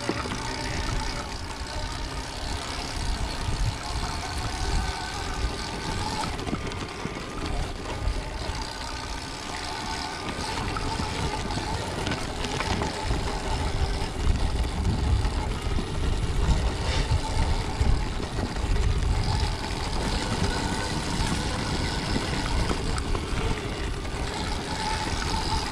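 Stark Varg electric dirt bike being ridden: motor and drivetrain whine under heavy wind and riding rumble on the microphone.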